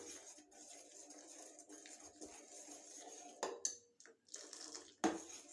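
Faint bubbling of dry ginger milk heating in a pan on the stove, with two short knocks, about three and a half and five seconds in.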